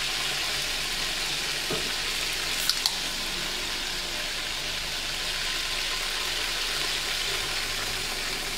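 Whole chickens sizzling in oil in a large aluminium pot on a gas burner, a steady hiss. Two sharp clicks come a little under three seconds in.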